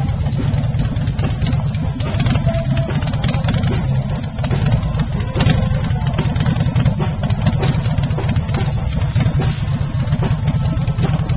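A motorcycle engine idling steadily, a low, even running sound.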